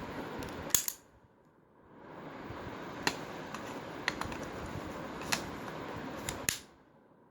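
Handling noise and sharp metal clicks from a Zoraki 918 blank pistol as its slide is pushed back onto the frame during reassembly. The loudest click comes just under a second in, and several lighter clicks follow later.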